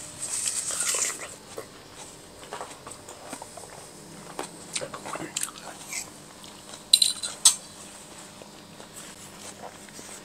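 Someone eating watermelon: a juicy slurp at the start, then chewing with small mouth noises, and two sharp clinks of a fork against a plate about seven seconds in.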